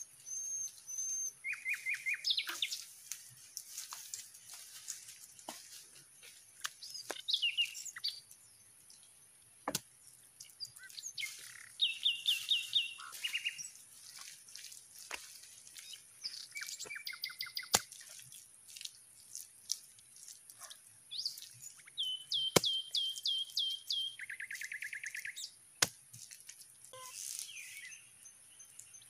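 Several forest birds calling: short series of repeated whistled notes and quick trills, over a steady high-pitched insect drone. A few sharp knocks sound now and then.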